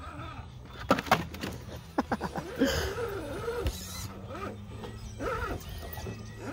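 Small electric motor and drivetrain of a scale RC rock crawler, with an Injora 35-turn 540 brushed motor, whining and repeatedly rising and falling in pitch as the throttle is worked. There are a few sharp knocks about one and two seconds in.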